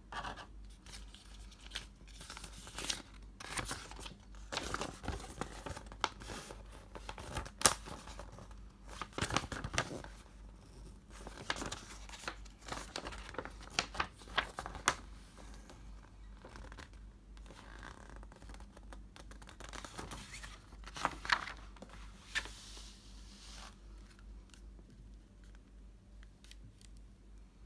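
Packaging of a trading card game starter deck being opened by hand: wrapping torn and crinkled and the box handled, in a run of short crackles and rustles that are busiest in the first half and thin out later.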